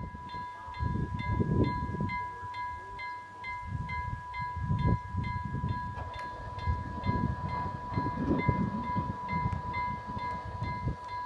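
Level crossing warning bell ringing fast and evenly, about three strokes a second over a steady ringing tone. It is the signal that the crossing barriers are coming down for an approaching train.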